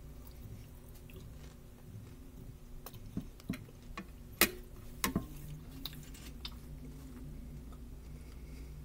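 Knife and fork cutting a baked pork chop on a plate: a few sharp clicks and scrapes of the cutlery in the middle of the stretch, the loudest about four and a half seconds in, over a steady low kitchen hum.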